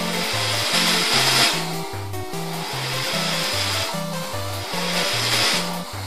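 Background music with a repeating bass line, over the noisy whirr and scrape of the Chinon C-300 8mm projector's mechanism running in reverse with a screwdriver pressed into it. The noise swells about one second in and again about four seconds in. The drive belt is slipping and not gripping, from decades of disuse.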